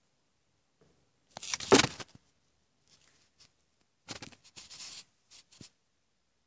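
Short rubbing and scraping noises close to the microphone: a loud scrape about a second and a half in, a cluster of softer ones around four to five seconds, then a couple of small clicks.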